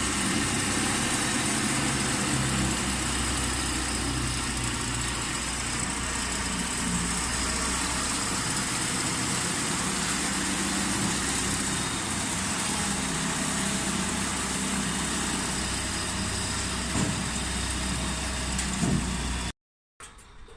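Four-row corn harvester running: a steady diesel engine with machinery noise and hiss over it, a couple of brief knocks near the end, then the sound cuts off suddenly.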